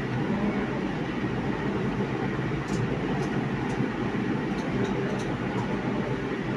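Lentil-and-egg fritters deep-frying in hot oil in a non-stick pan: a steady sizzle over a low, constant rumble. A few light clicks of the wire skimmer against the pan come between about two and a half and five seconds in, as fritters are lifted out.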